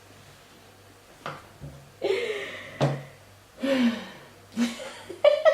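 Two sharp knocks or taps, with short wordless voice sounds between them.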